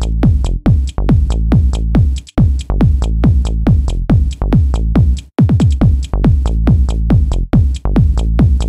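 Electronic music with a fast, even beat: repeated hits that fall in pitch, about three a second, with two brief breaks, a little past two seconds in and just past five.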